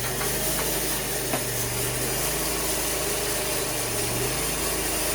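Cook band sawmill's engine running steadily at idle, with one faint click about a second and a half in.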